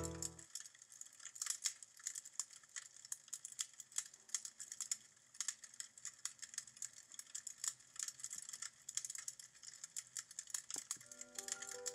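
Wood fire crackling in a fireplace: quiet, sparse, irregular snaps and clicks. Music with picked notes starts again near the end.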